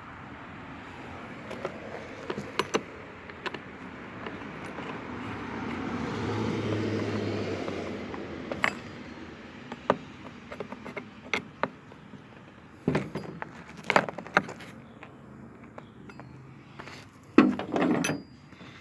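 Scattered metal clicks, clinks and knocks of chainsaw parts and hand tools being handled during reassembly, with a louder scraping clatter near the end. A low hum swells and fades in the middle.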